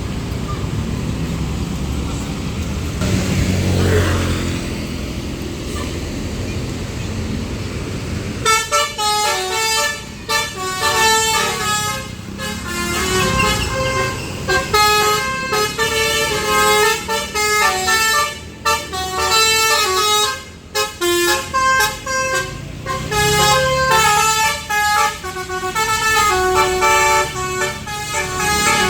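Road traffic with a vehicle passing, then about eight seconds in a bus's basuri musical horn plays a fast melody of stepped notes, several pitches sounding together, to the end.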